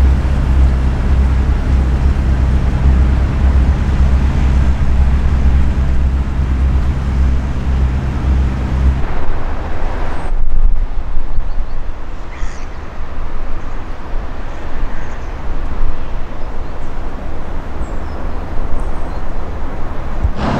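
Inland cargo barge's diesel engine running with a steady low drone for about the first nine seconds. After that there is a fluctuating rush of wind on the microphone.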